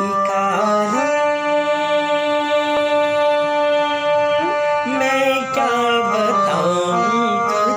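Electronic keyboard playing a song intro: a long held note, then a stepping melodic phrase in the last few seconds, with a man's wordless singing gliding over it.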